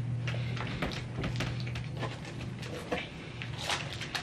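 Eating sounds: scattered wet mouth clicks of chewing and lip smacking over a low steady hum that fades out about two thirds of the way through.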